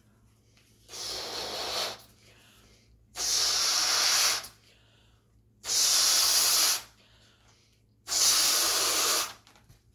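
Breath blown by mouth into a large balloon to inflate it: four long exhales of rushing air, each about a second, with short quiet pauses for breath between them; the first is softer than the rest.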